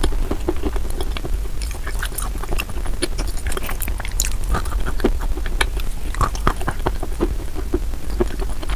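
Close-miked chewing of wet chalk: a continuous, irregular crunching full of small crackles and clicks, over a steady low hum.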